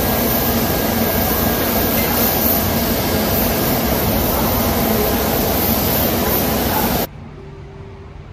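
Loud, steady roar of a jet airliner's engines and rushing air, which cuts off sharply about seven seconds in to a much quieter steady hum.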